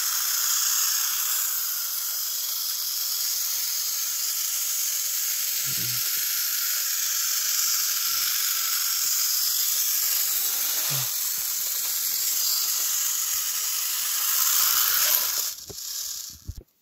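Battery-powered toy train engine running on plastic track: a steady whirring hiss, with a soft low clunk about every five seconds. The sound cuts off sharply about a second before the end.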